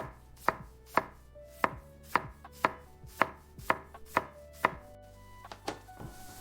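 A kitchen knife chopping on a wooden cutting board in a steady rhythm, about two strokes a second. There are some ten sharp knocks, which stop about five seconds in, followed by a couple of lighter taps.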